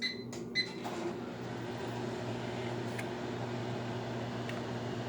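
Microwave oven keypad beeping twice, then the oven starting and running with a steady hum as it heats a cup of vinegar and water to steam the inside.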